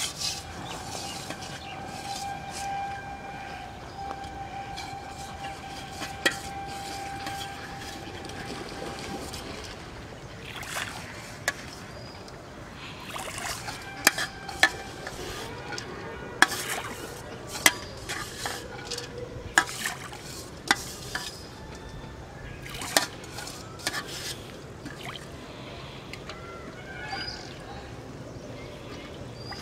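Water sloshing in an aluminium pot as rice bait is stirred by hand, then a run of sharp knocks and splashes as the bait is thrown into the pond and the pot is handled. A steady high tone holds through the first several seconds.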